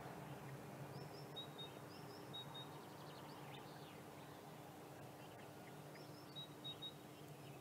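Faint songbird song: short high whistled phrases, each a high note dropping to two or three lower notes, repeated a few times, with a brief scratchy trill midway. A steady low hum lies underneath.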